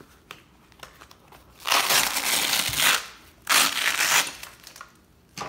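Hook-and-loop (Velcro) strips on a plate carrier and radio pouch ripped apart twice, a longer rip about two seconds in and a shorter one a second and a half later, after a few light handling clicks.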